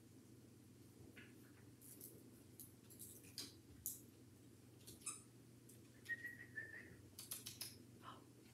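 Brittany puppies at play: faint scattered clicks and scuffles of paws and toys, growing busier toward the end. A brief high, whistle-like squeak comes about six seconds in.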